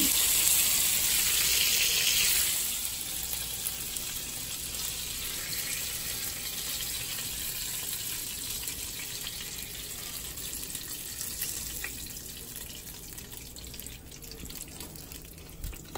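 Butter and olive oil sizzling and crackling around flour-battered grouper pieces frying in a pan. The hiss is loud for the first couple of seconds, then drops to a softer steady sizzle.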